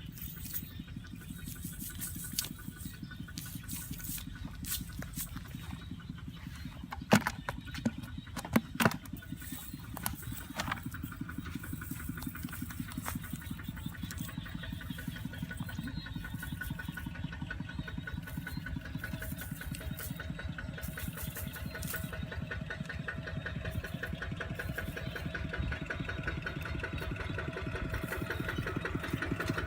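A small engine running steadily, growing louder near the end, with a few sharp knocks about a third of the way in.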